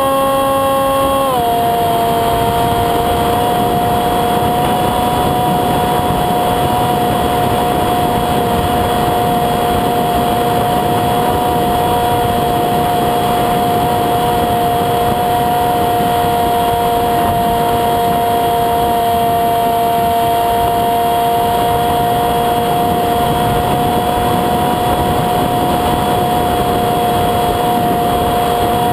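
The electric motor and propeller of a Windrider Ele-Bee2 RC flying wing, a steady whine over rushing air. Its pitch drops about a second in as the throttle is eased back, then holds steady.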